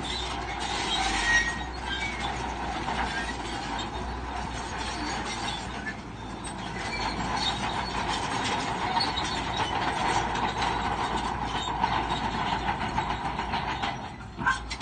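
Crawler bulldozer working, its diesel engine running under load while the steel tracks clank and squeal in a steady metallic clatter.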